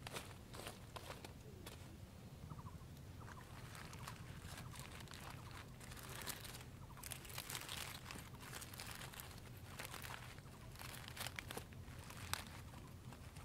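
Charred, dried banana leaves crinkling and crackling as a leaf-wrapped parcel is peeled open by hand, with many short crisp clicks and crunches. The rustling is busiest around the middle and again near the end.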